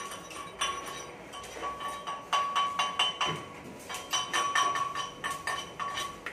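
Steel pipe coupon struck again and again with a hand tool, a run of sharp metallic taps that each ring briefly at the pipe's own tone. The taps come faster, about three or four a second, from about two seconds in.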